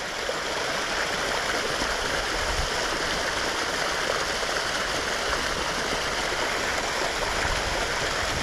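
Small creek running over a little waterfall: a steady, even rush of water.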